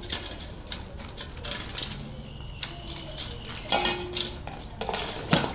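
Several dogs eating from metal bowls on a tiled floor: irregular clinks and clatters of the bowls as the dogs push into them while chewing.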